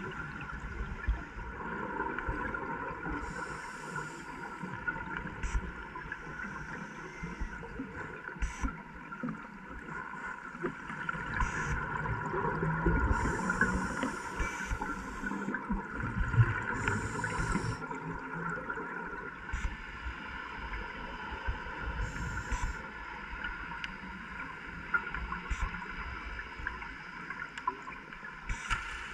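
Underwater sound heard through a camera housing: a steady hum and low rumble, with scuba divers' exhaled regulator bubbles gurgling and hissing in short patches every few seconds.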